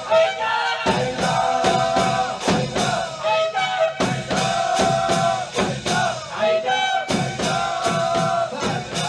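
Instrumental interlude of a Shia mourning chant (tatbir hosa): a fast, even percussion beat of about four strikes a second under a held melody that repeats in phrases of about three seconds.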